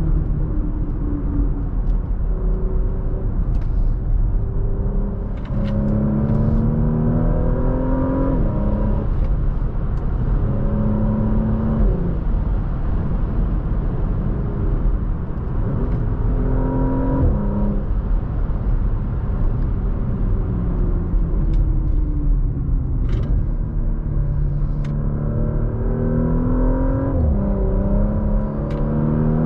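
Porsche Macan Turbo's twin-turbo V6 pulling hard under acceleration over steady road rumble. The engine's pitch climbs and then drops sharply at each upshift, four times in all.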